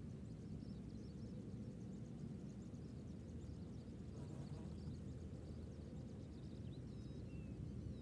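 Quiet outdoor background: a steady low rumble with scattered faint, thin, high chirps of small birds, and a few short gliding chirps near the end.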